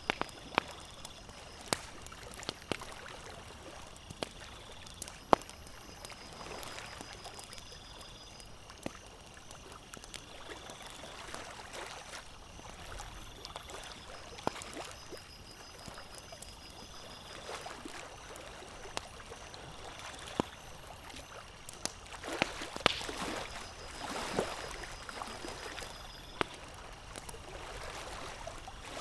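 Campfire crackling, with scattered sharp pops over water gently lapping at a lakeshore. The lapping swells a little louder about three quarters of the way through.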